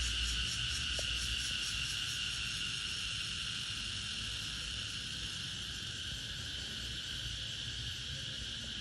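Cicadas singing in chorus: a steady, shrill, high buzz, with a pulsing trill over it that fades out about two seconds in.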